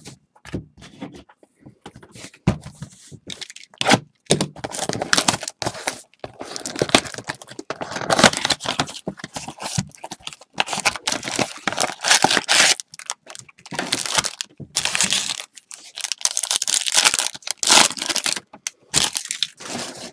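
Wrappers of 2020 Bowman baseball card packs being torn open and crinkled, with the cards flicked through by hand, in repeated rustling bursts.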